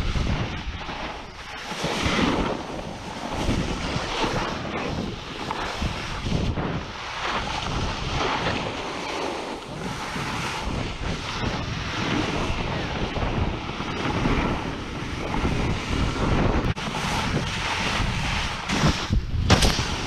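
Wind buffeting the microphone while riding a snowboard downhill, mixed with the board scraping and hissing over packed snow. The rush swells and eases every second or two as the rider turns.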